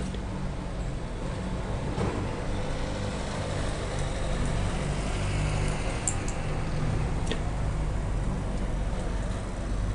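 Steady low rumble with a few faint, sharp clicks.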